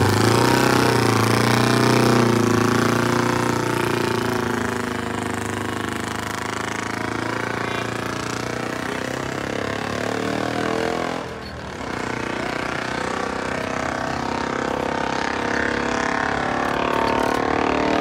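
1938 Scott Flying Squirrel's 596cc parallel-twin two-stroke engine running steadily, just started. About two-thirds of the way through it briefly drops away, then picks back up and runs on.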